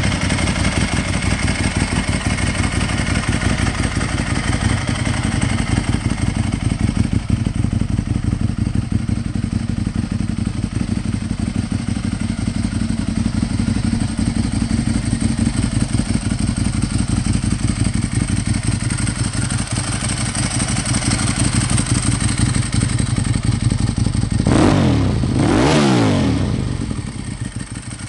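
2008 Ducati 1098's L-twin engine idling steadily, then revved once and let fall back near the end.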